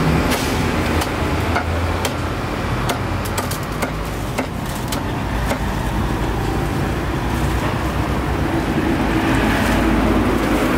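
Cleaver chopping crispy roast meat on a thick wooden chopping block: a string of sharp, irregular knocks, over a steady low rumble.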